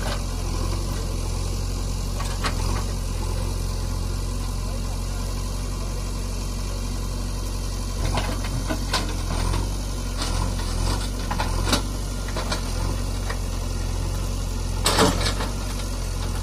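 JCB 3DX backhoe loader's diesel engine running steadily while the backhoe arm and bucket work. Scattered sharp knocks and clanks come in over the second half, the loudest near the end.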